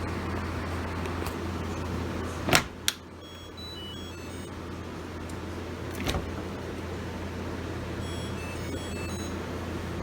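Steady low machine hum, interrupted by two sharp knocks about two and a half seconds in and a single knock near six seconds, with faint short high tones scattered between them.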